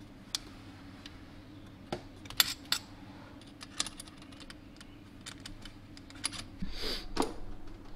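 Light, scattered metallic clicks and ticks of an Allen key working the hex screws that fasten an aftermarket blow-off valve to the turbo intake piping, over a faint steady hum.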